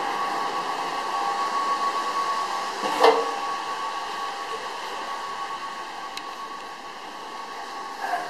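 A ventilation fan runs steadily, a rushing noise with a few fixed hum tones, growing slowly fainter. A single sharp knock comes about three seconds in.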